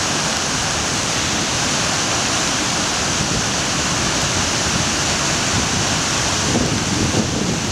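Small mountain river in flood after heavy rain, its brown water rushing over rocks and low cascades in a loud, steady rush.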